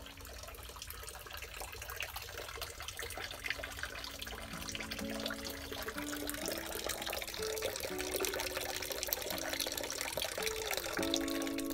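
A thin stream of water pouring from a dragon-head spout into the stone basin of a shrine's purification fountain, a steady splashing trickle that grows gradually louder.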